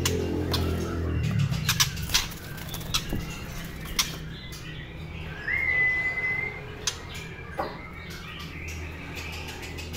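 White-rumped shama flapping and hopping about its cage, with wingbeats and scattered sharp knocks of its feet on the perches and bars. About midway it gives one clear whistled note that rises briefly and then holds for about a second.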